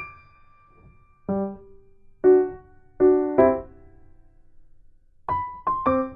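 Background piano music: single struck notes and chords that ring and fade, about one a second, quickening into a faster run of notes near the end.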